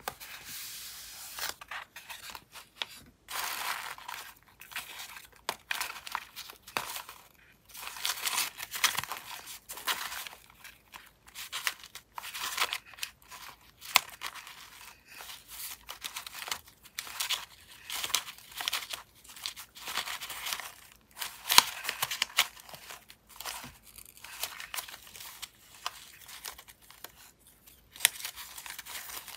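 Paper rustling and crinkling in irregular bursts as a thick bundle of layered paper scraps is handled, squeezed and shuffled.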